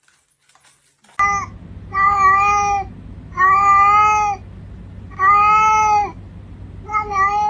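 A pet animal giving a string of long, drawn-out cries: a short one about a second in, three held for about a second each, and a shorter one near the end, over a steady low hum.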